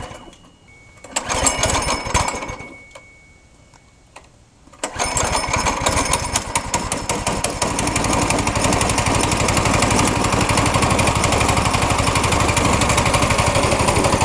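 Small single-cylinder four-stroke go-kart engine being pull-started with its recoil starter: a pull about a second in that doesn't catch, then the engine catches about five seconds in and keeps running steadily.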